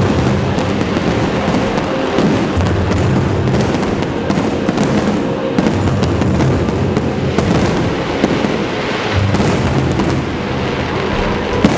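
A dense fireworks barrage, many aerial shells bursting at once: continuous loud crackling and popping with frequent sharp bangs.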